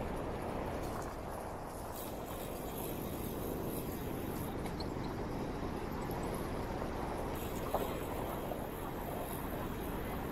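Steady rumbling noise of a bicycle ride among city traffic, with wind on the microphone.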